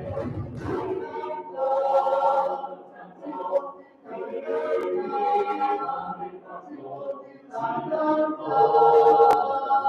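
Clapping fades in the first second, then a mixed choir sings in long sustained phrases, with short breaks about four and seven seconds in. The last phrase is the loudest.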